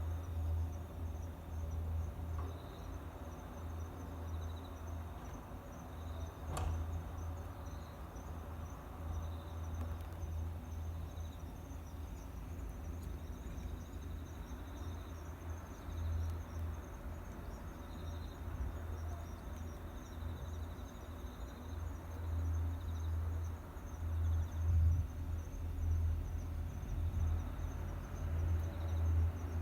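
Insects chirping steadily in a high, even pulse, over a low, irregularly pulsing rumble, with a single sharp click about six and a half seconds in.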